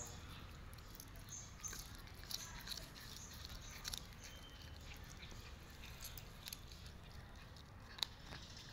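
A cat chewing grilled meat off a wooden skewer: faint, scattered clicks and crunches of its teeth.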